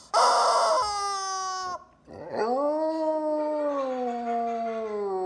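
Dog howling: a short howl with a rough start, then after a brief pause a long howl that rises and then slowly sinks in pitch.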